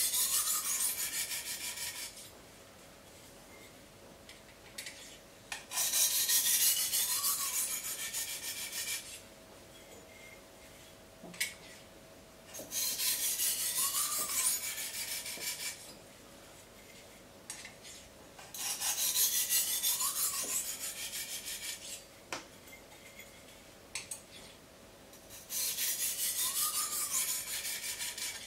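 Knife edge being stroked rapidly against a 600-grit sharpening stone, polishing the edge side to side. The scraping comes in five runs of about three seconds each, with short pauses between.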